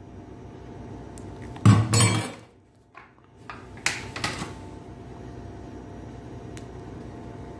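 A metal spoon knocking and scraping against a plastic sieve and a cocoa powder packet while cocoa is spooned out: a loud clatter about two seconds in and a few sharp clicks around four seconds, over a steady faint hum.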